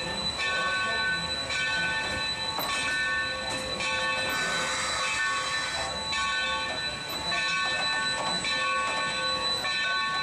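Steam locomotive No. 3025's bell ringing over and over, about a stroke a second, as the engine moves slowly tender-first. There is a short hiss of steam around the middle.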